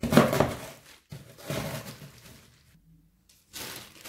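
Rolling pin crushing Lotus biscuits inside a plastic freezer bag: two heavy thuds with crunching, one at the start and one about a second later, each dying away quickly.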